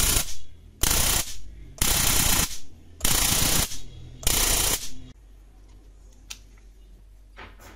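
Battery-powered high-voltage step-up generator module arcing across its output leads in five bursts, each about half a second long, spaced about a second apart. A faint click and a short rustle follow near the end.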